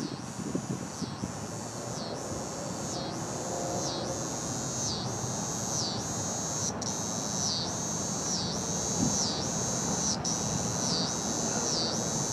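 A chorus of insects calling in a high, regular pulse, about two pulses a second, over a steady low rush of background noise.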